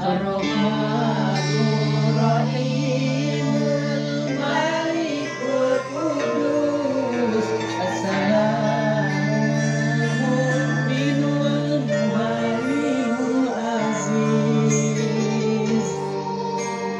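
Background music: a voice singing a slow melody over guitar and held low notes.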